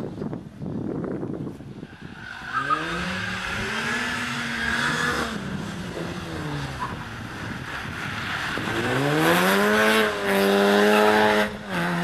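Mini Cooper S's four-cylinder engine revving hard as the car is driven around a tight course. The pitch climbs, holds, then drops around the middle, and climbs again to its loudest near the end, with two short breaks in the note.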